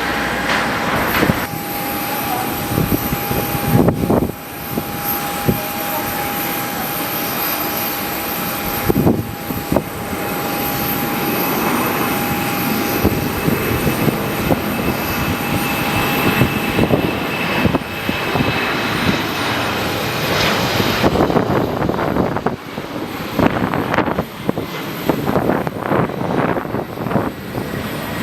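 Embraer E190 jet taking off, its twin GE CF34 turbofans running at takeoff power with a steady whine, while strong gusty wind buffets the microphone.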